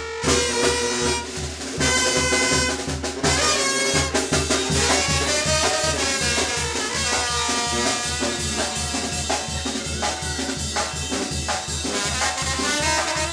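Live Mexican brass band (banda) playing an upbeat dance tune: tuba bass pulsing on the beat under trumpets and trombones, with snare drum and cymbal.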